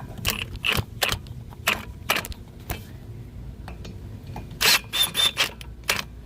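Irregular metal clicks and clinks of hand tools working on a stuck brake rotor, with a louder cluster about five seconds in.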